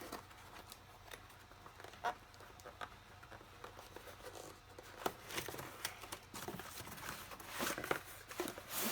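Cardboard box being opened by hand: scattered small taps and scrapes, then denser rustling and tearing of packaging over the last few seconds.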